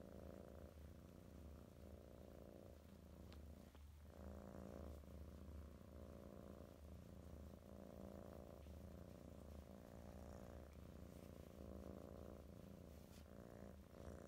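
Golden chinchilla British Shorthair cat purring faintly while being stroked. The purr swells and eases in a steady cycle with each breath in and out, about every one to two seconds.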